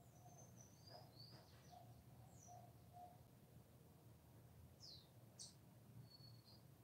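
Cockatiel giving faint short high chirps and quick downward-slurred whistles in two bursts, one in the first couple of seconds and another about five seconds in.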